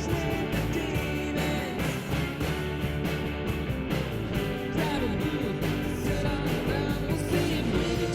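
Rock background music with guitar and a singing voice over a steady beat.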